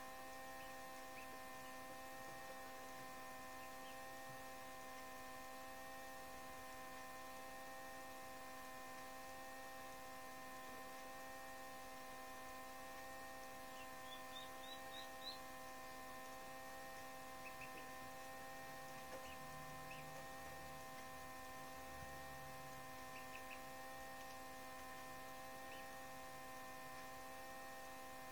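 Faint steady electrical hum made of several steady tones. About halfway through, a quick run of about five faint, high, short rising peeps comes from the duckling calling inside its pipped duck egg.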